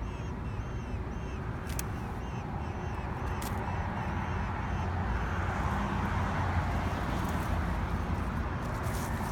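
Mockingbird giving short, repeated call notes, about two a second, that stop after roughly three and a half seconds. Under them runs a steady low rumble that grows louder around the middle.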